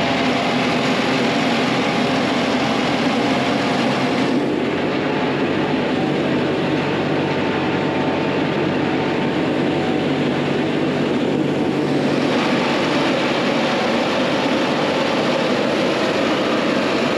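Diesel engine of a compact earthmoving machine running steadily under work, with a steady low hum. Its higher-pitched noise eases for several seconds from about four seconds in, then comes back.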